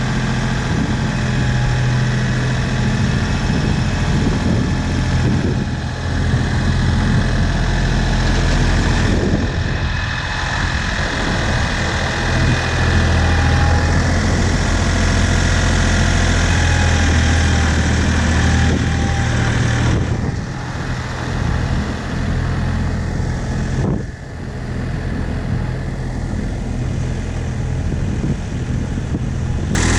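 Ford 1710 tractor's three-cylinder diesel engine running at a steady speed, dipping briefly twice in the last third.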